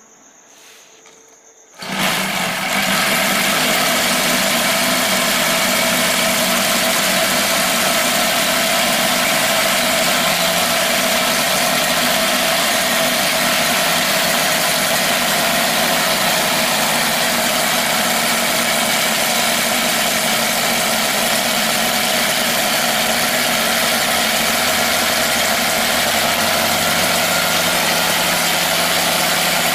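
Seven-cylinder radial four-stroke model aircraft engine catching about two seconds in, then running steadily with its wooden propeller spinning. The engine is brand new and still tight, being run in.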